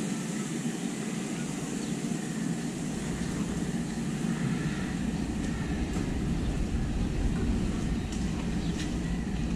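Street ambience dominated by a steady low rumble of vehicle noise. It deepens about three seconds in, with a few faint ticks later on.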